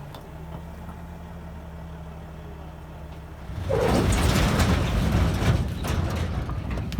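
A heavy diesel vehicle or machine idles steadily with a low hum. About three and a half seconds in, a much louder rush of engine and rumbling noise comes in, with a few knocks and clanks.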